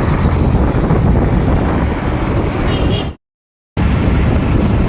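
Wind buffeting the microphone over road and traffic noise while riding a motorbike. The sound cuts out completely for about half a second just after three seconds in, then resumes.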